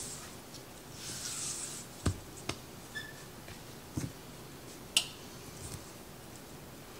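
Hands pressing and patting soft biscuit dough together on a floured silicone pastry mat: a soft rustle of flour and dough, then a few separate sharp pats and taps, the loudest about five seconds in.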